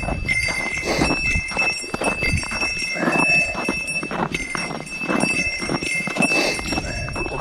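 A small bell jingling and ringing steadily as a person walks, with footsteps about once a second.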